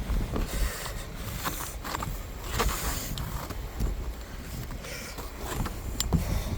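Snow being brushed and scraped off a car in short, repeated strokes, with a steady low rumble of wind on the microphone underneath.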